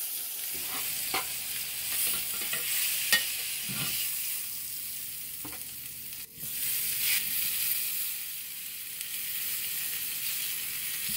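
Oil sizzling steadily in a hot cast-iron grill pan, with a few light clicks of metal tongs.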